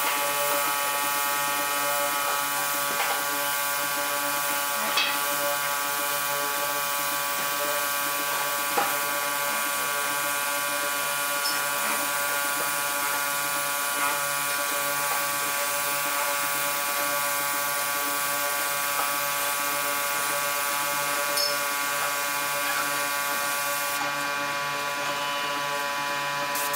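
Gravity-feed air spray gun hissing as it sprays clear finish onto a wooden tabletop, over the steady electric hum of an air compressor. The hiss of the spray cuts out about 24 seconds in while the hum carries on.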